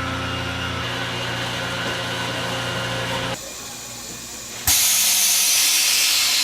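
A steady mechanical hum with a low drone stops about three and a half seconds in. Just under five seconds in, a loud hiss starts suddenly and holds.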